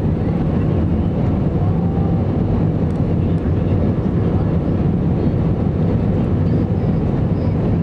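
Airbus A320 in flight, heard from inside the passenger cabin: a steady, even roar of the jet engines and rushing air.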